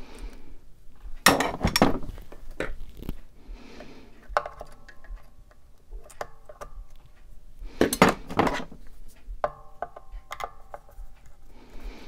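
Metal hand tools being handled at a guitar body while a ground wire is fixed around a screw: two bursts of clicking and clattering, and two short metallic rings, about four and nine and a half seconds in.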